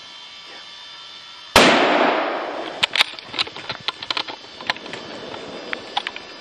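A single gunshot about a second and a half in: one loud crack with a long echoing fade. It is followed by a scatter of short sharp snaps and clicks.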